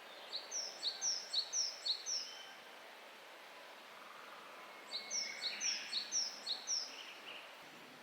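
Japanese tit singing its high two-note song. It sings two runs, each a two-note phrase repeated about four times, with a pause of about two and a half seconds between them.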